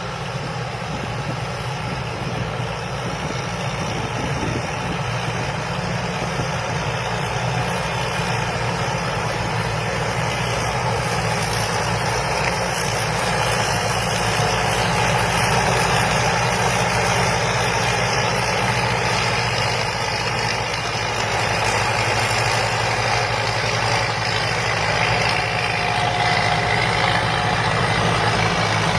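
Diesel engine and machinery of a Thai Charoen Kanchang combine harvester running steadily under load while harvesting rice, growing gradually louder.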